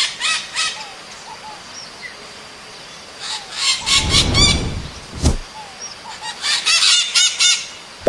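Maritaca parakeets giving rapid, harsh screeching calls in three bouts: just after the start, about three seconds in, and near the end. A low rumble and then a single thump come around the middle.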